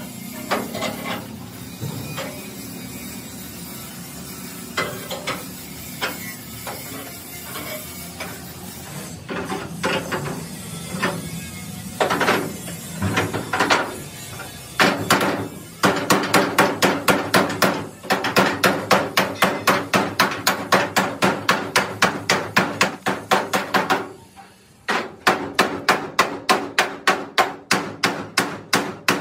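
A hand hammer beats the bent steel roof frame of an excavator cab to straighten it. Scattered, softer knocks come first; about halfway in they give way to a fast, even run of loud metallic blows, about four a second, broken by one short pause near the end.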